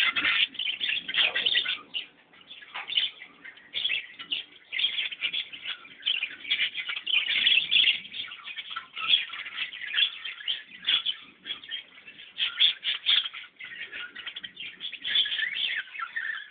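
Many small birds chirping and twittering at once, a dense, unbroken chorus of short high calls.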